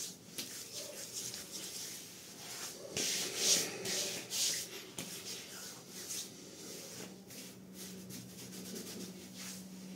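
Hands patting and rubbing aftershave into freshly shaved skin: soft, irregular skin-on-skin rubbing, louder for a moment about three to four seconds in.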